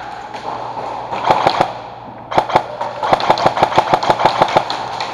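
Airsoft gunfire: sharp cracks fired in quick strings, with a short burst just over a second in and a longer run of about six or seven shots a second in the second half.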